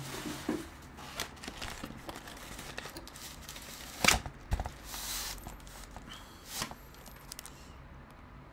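Plastic air-column packaging crinkling and rustling as it is handled and a box is pulled out of it, with a few sharp knocks, the loudest about four seconds in.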